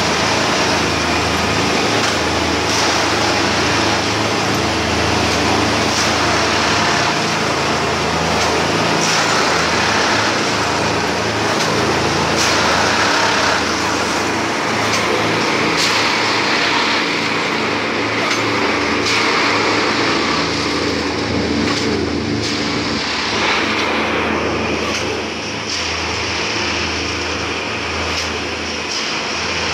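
Plasser & Theurer 09-32 tamping machine running at work: a steady diesel and hydraulic drone with scattered short clanks of its tamping gear over the ballast.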